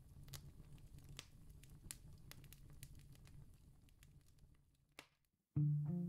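Faint campfire crackling, scattered sharp pops over a low rumble, fading out about four and a half seconds in. Acoustic guitar music starts near the end.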